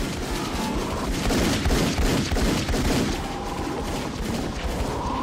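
Film-soundtrack gunfire: a rapid volley of gunshots with heavy low booms. A steady pitched tone comes in near the end.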